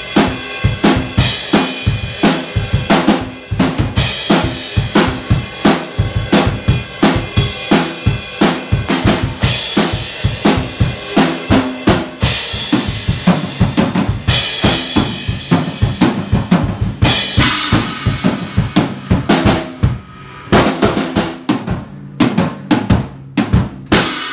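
Mapex acoustic drum kit played in a driving rock beat: bass drum and snare hits with rimshots and fills, broken by several cymbal crashes, the last one near the end.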